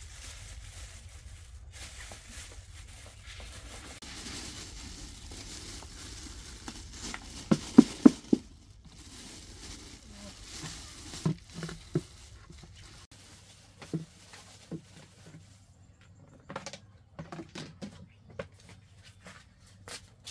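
Rice being handled in a plastic bag and red plastic containers: a soft pattering rustle of grains and bag, a cluster of loud thuds and knocks about eight seconds in, then scattered lighter knocks and taps.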